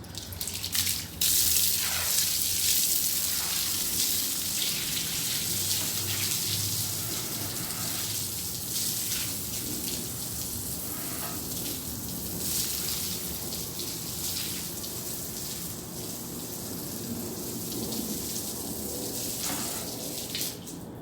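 Water spraying from a garden hose onto a hard surface: a strong, steady hiss that starts abruptly about a second in and eases off near the end.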